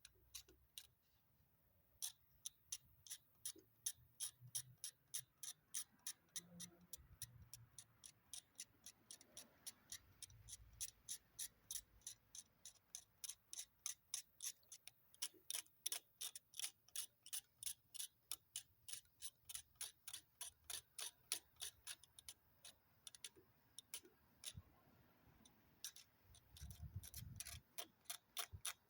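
Steady, even ticking, about two to three ticks a second, starting about two seconds in, with a few soft low thumps near the end.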